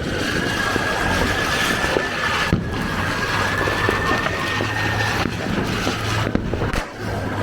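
Firecrackers going off: a steady hissing rush with a thin, slightly wavering whistle that stops about five seconds in, and a few sharp cracks in the second half.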